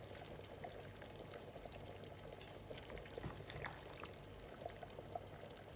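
Faint liquid sound with small pops and clicks scattered throughout, as of sauce or liquid in the cooking.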